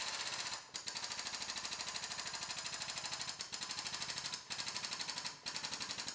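Pneumatic air hammer rattling rapidly against a crumpled steel quarter panel, in runs with a few brief breaks. It is stress relieving the bent metal while the frame machine keeps it under pull.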